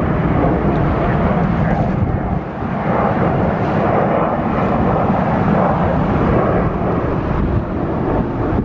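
Delta Airbus A321 jet airliner climbing out after takeoff, its engines making a loud, steady rumble.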